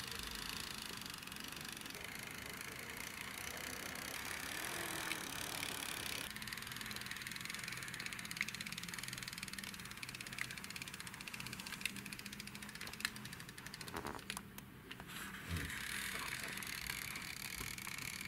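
Pull-back motor of a die-cast toy Chevrolet Camaro whirring as the car is pushed along a wooden floor, its gears giving a fast, steady ratcheting buzz, with a few sharper clicks now and then.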